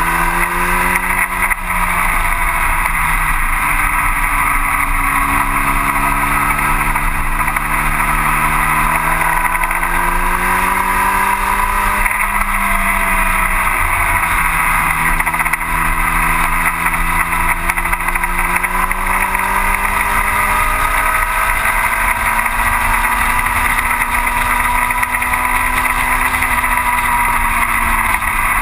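1960 Cooper T-52 Formula Junior's engine at racing speed, heard from the cockpit, under a steady rush of noise. The engine note climbs steadily for several seconds at a time and dips as it comes off the throttle or changes gear: about twelve seconds in, again around twenty seconds, and near the end.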